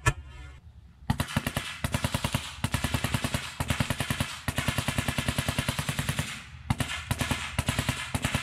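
Full-auto pellet gun firing in rapid bursts of sharp cracks, many shots a second. It starts about a second in, and the bursts are separated by short pauses, with one longer run in the middle.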